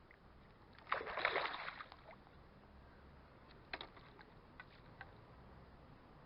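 A short burst of crackly noise about a second in, lasting about a second, then a few faint separate clicks.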